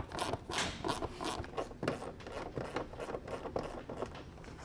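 Quick, irregular scraping and rustling, about four or five strokes a second, from hands working the convertible top's fabric and its metal trim strip.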